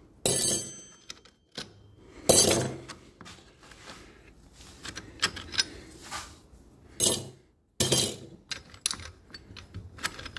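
Metal motorcycle clutch parts clinking and clanking as the clutch discs are handled and taken out of the clutch basket: irregular light clicks with a few louder clanks.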